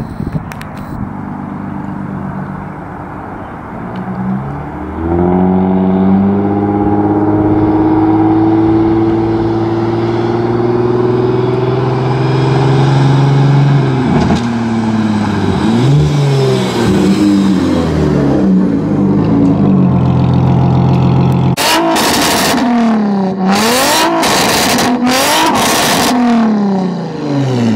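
Infiniti G35's 3.5-litre V6 through a custom exhaust of resonated test pipes into an X-pipe and dual straight pipes. It runs low at first, then accelerates about five seconds in with a rising engine note that holds high and loud. From about fourteen seconds in, the revs rise and fall repeatedly.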